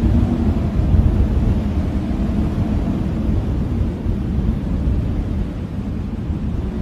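Blizzard wind blowing in a steady, deep rumbling rush, with a faint howling tone in the first couple of seconds; the wind eases a little toward the end.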